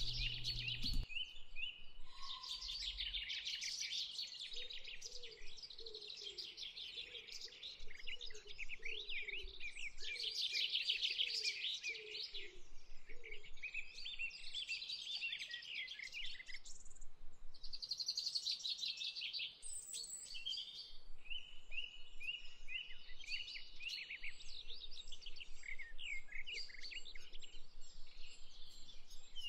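A dense chorus of birds chirping and trilling, many calls overlapping, with a lower, slower series of short repeated calls from about five to thirteen seconds in.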